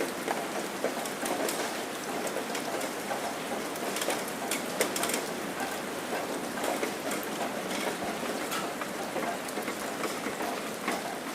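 Steady rain falling, a dense even hiss with many separate drops ticking on surfaces throughout.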